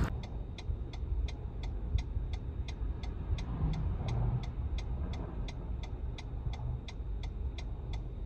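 Car turn-signal indicator ticking steadily, about three ticks a second, over the car's low engine and road rumble.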